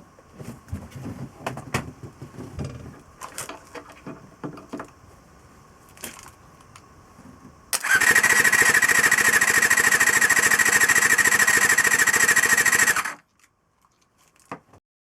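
Honda MC23 Jade's MC14E inline-four engine being cranked on its electric starter for a compression test, a steady fast pulsing with a whine for about five seconds, without the engine starting, then cutting off suddenly. Before it, scattered clicks and knocks of handling.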